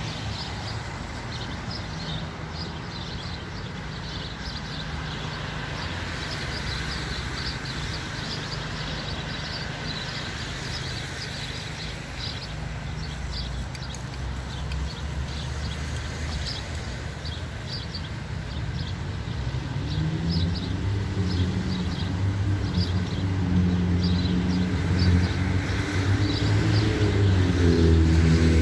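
Metra F59PHI diesel locomotive engine running, then throttling up about 20 seconds in, growing louder with its pitch rising. A steady series of short high ticks runs over it.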